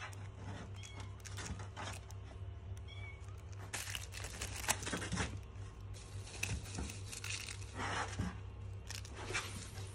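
Plastic wrapping rustling and crinkling in short bursts as a munchkin kitten pounces on and wrestles with a furry toy, busiest about four to five seconds in and again near eight seconds. The kitten gives a few brief high chirps early on, over a steady low hum.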